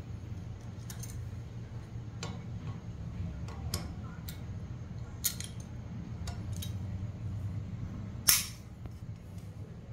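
Hex key working the chainring bolts of a bicycle crankset loose: scattered light metallic clicks as the key seats and turns, with one louder sharp clack a little past eight seconds in. A steady low hum runs underneath.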